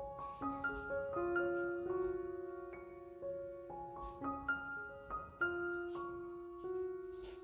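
Soft instrumental piano music: a slow melody of single notes, each ringing on as the next is played.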